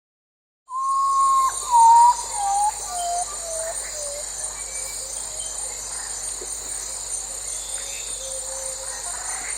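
A theremin's pure, gliding tone starts about a second in and steps down in a series of short sliding notes from high to low, loudest near the start. Beneath it runs a steady, high, cricket-like chirring.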